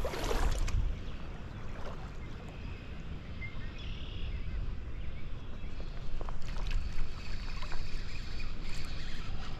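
Wind buffeting the microphone as a steady low rumble, over the rushing water of a trout stream; louder in the first second.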